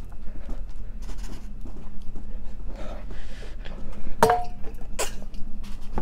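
A man panting and gasping with his mouth burning from an extremely spicy chip: repeated short, breathy breaths, with two sharper voiced gasps about four and five seconds in.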